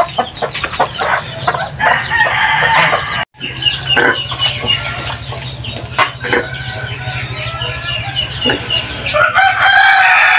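Chickens clucking, with a rooster crowing in one long, loud call near the end. A steady low hum runs under the middle part.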